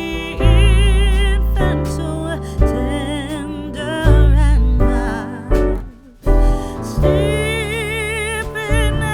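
Background music: a wavering, vibrato melody over deep bass notes that change every second or so, with a brief drop in level about six seconds in.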